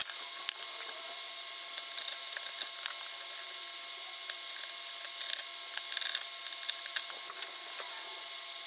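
Utility knife blade scoring and cutting through cardboard on a wooden bench, with scattered small clicks and scrapes as the cardboard is handled and folded, over a steady background hiss.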